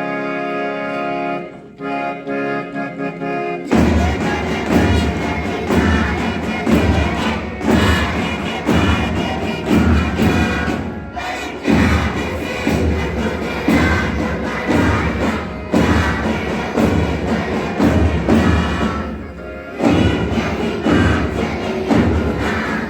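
Music: a held chord, then about four seconds in a full song with a heavy, steady beat about once a second starts and carries on.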